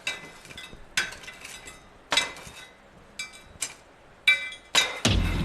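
Irregular light hammer blows on steel, about six metallic clinks each ringing briefly. Background music comes in near the end.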